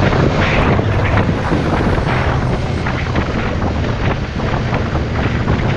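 Motorcycle engine running at a steady pace while riding, under heavy wind noise on the microphone.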